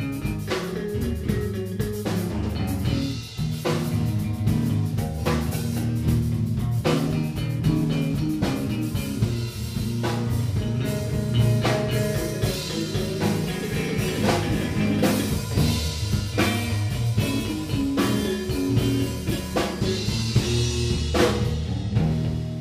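Live blues band playing: drum kit keeping a steady beat under electric bass and guitars.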